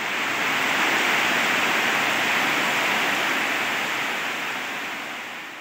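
Heavy rain falling on tree foliage, a steady even hiss that swells up over the first second.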